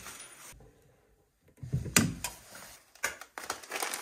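Handling sounds from small plumbing fittings: one sharp knock about two seconds in, a few lighter clicks, then a plastic bag of fittings starting to crinkle near the end.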